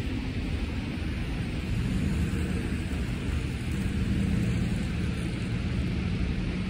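City street traffic: a steady low rumble of passing cars, with a low engine hum coming in about two seconds in.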